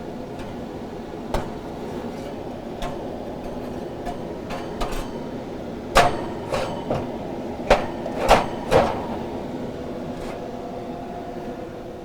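A steady machine hum with a handful of sharp metallic clicks and knocks, as metal sample cans are set into a laboratory drying oven and its door is handled; the loudest knocks come about halfway through and again a couple of seconds later.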